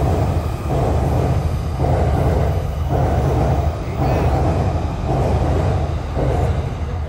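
Train running past, a heavy steady rumble with a louder clatter of wheels over the rails about once a second.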